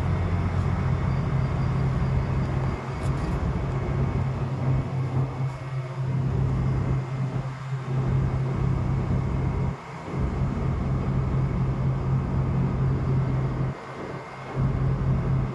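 Steady low hum of a ship's machinery running while the ship lies stopped at sea, over a constant rushing noise. The sound dips briefly about ten seconds in and again near the end.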